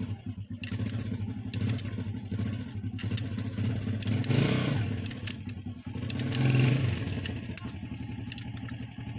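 A motorcycle engine running nearby, swelling up twice in the middle, with scattered sharp metal clicks from a spanner turning a bush puller's bolt.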